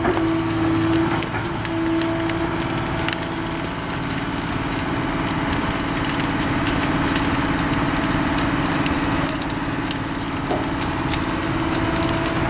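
Excavator engine running with a steady drone, with irregular sharp cracks and crackles on top of it throughout.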